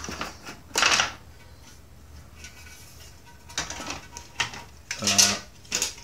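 Handling clatter of an IBM Model M keyboard's plastic barrel plate with its bolts as it is picked up and moved: a sharp clatter about a second in, then several knocks and clatters near the end.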